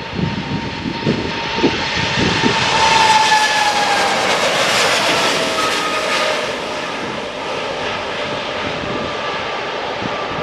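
Boeing 777-300's twin jet engines at takeoff thrust as it lifts off and climbs past: a loud roar that swells to a peak a few seconds in, then eases, with whining tones falling in pitch as it goes by. Wind gusts on the microphone in the first few seconds.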